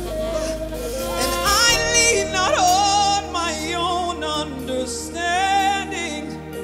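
A woman singing a gospel worship song into a microphone, her voice sliding and bending through long held notes with a sweeping run about two and a half seconds in, over sustained instrumental chords.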